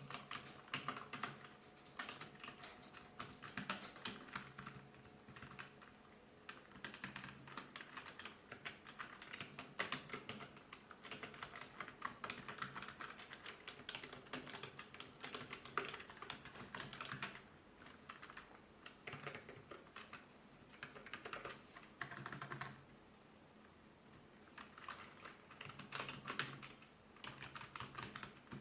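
Typing on an Office 5+ 2.4 GHz wireless ABNT2 keyboard: rapid key clicks in bursts, broken by a few short pauses.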